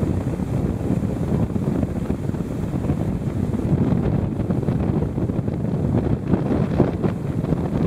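Strong storm wind buffeting the microphone, heard as a steady low rumble.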